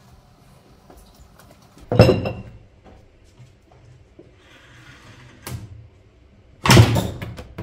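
A homemade tube ball launcher being worked and fired, sending a tennis ball at a strung tennis racket: two loud knocks about five seconds apart, the first with a short metallic ring, and a smaller knock between them.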